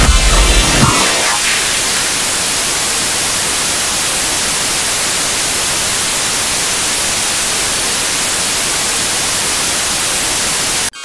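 Analogue TV static: a loud, steady white-noise hiss with no tone or rhythm in it. Heavy-bass electronic music dies away under it in the first second, and the hiss cuts off suddenly near the end.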